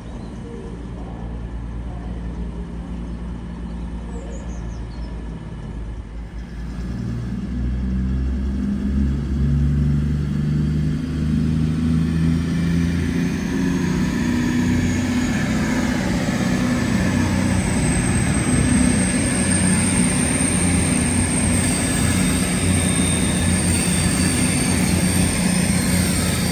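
CrossCountry Class 221 Super Voyager diesel-electric train's engines running at the platform. They grow louder about seven seconds in, and a thin high whine climbs steadily in pitch over the next dozen seconds.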